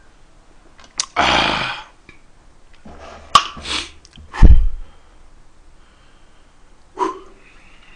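A man sneezing several times in short, sudden bursts, the loudest about four and a half seconds in.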